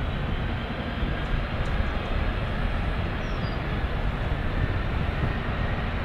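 Four Pratt & Whitney F117 turbofans of a Royal Air Force Boeing C-17 Globemaster III at takeoff power as it starts its takeoff roll: a steady loud jet rumble with a thin high whine over it.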